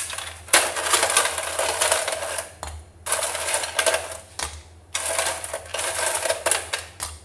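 Ice cubes clattering as they are shaken out of a plastic container into a blender jug, in three bouts with short pauses between.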